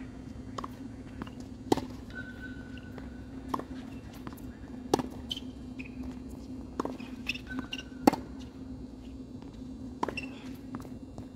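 Tennis rally on an outdoor hard court: sharp pops of the ball striking racquet strings and bouncing, about every one to two seconds, with the loudest hits about every three seconds. A steady low hum runs underneath.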